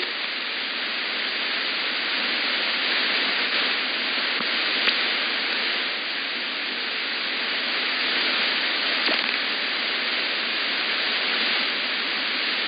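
Steady shortwave static hiss from an AM receiver, cut off sharply at about 5 kHz, with a couple of faint crackles. The station's carrier is on air with no programme on it, a gap of dead air between music and the announcement.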